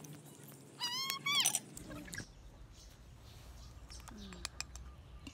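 A cat meowing: a few short, high, arching calls about a second in. Later come a few faint clicks of a metal spoon against an oyster shell.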